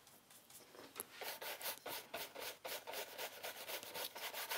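Flat paintbrush scrubbing paint onto a stretched canvas in quick back-and-forth strokes, about three or four a second, starting about a second in, blending and softening the blue.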